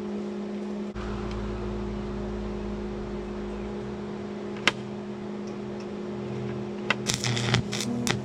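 Steady electrical hum. About seven seconds in, an arc welder starts striking and sputtering in short, irregular crackles while re-welding a cracked hydraulic fitting on a log splitter.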